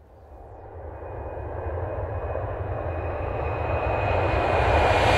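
Airplane engine sound effect: a steady rumbling drone that swells smoothly louder, with a faint high whine on top.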